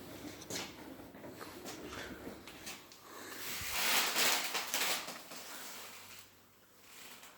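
Siemens washing machine in its wash cycle: wet laundry and water sloshing in the turning drum, with small knocks, swelling louder about halfway through and easing off toward the end.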